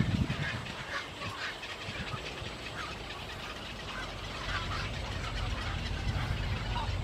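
Birds chirping and calling in quick short notes over a low rumble.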